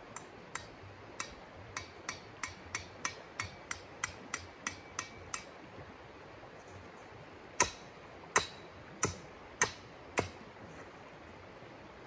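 A mallet driving a tent stake: a run of about fifteen light, ringing taps, roughly three a second, then a pause and five harder blows about half a second apart.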